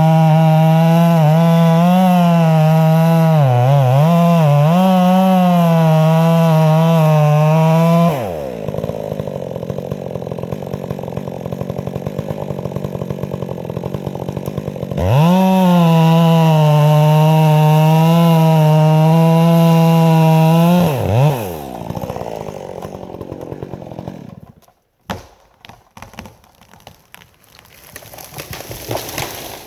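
Stihl MS 400 C two-stroke chainsaw cutting a pine trunk at full throttle, its pitch dipping and wavering as the chain bites into the wood. It drops back to idle, is revved up and cuts again, then falls to idle and stops. A few scattered sharp knocks follow near the end.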